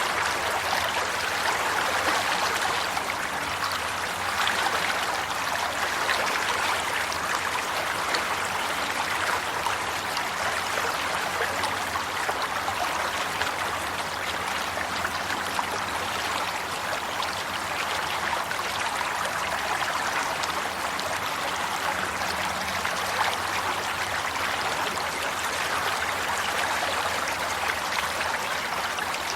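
Flowing water from a stream, running steadily and evenly.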